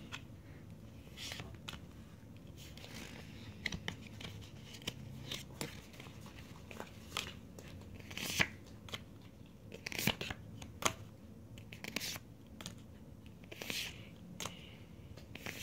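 Pokémon trading cards being handled and laid out by hand: scattered short swishes and taps of card stock sliding over one another, loudest about eight and ten seconds in.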